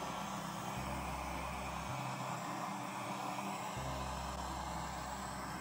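Handheld butane torch burning with a steady hiss, its flame played over wet acrylic pour paint to bring up more cells.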